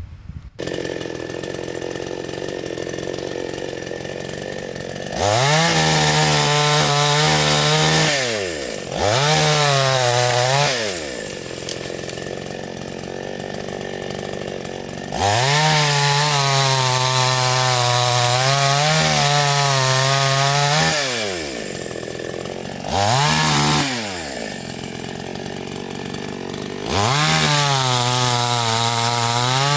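Homdox CS5200 52cc two-stroke chainsaw engine idling. It is then revved up to full throttle several times, each burst held for a few seconds before dropping back to idle, the longest about six seconds.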